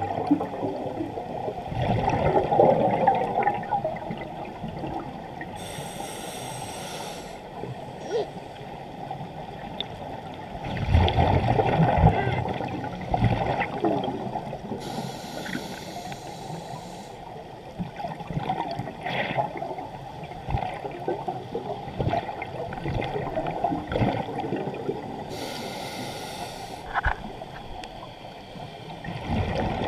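Scuba diver breathing through a regulator, heard from inside an underwater camera housing: a brief hiss on each inhale, about every ten seconds, and louder bubbling on the exhales, with muffled rumbling between.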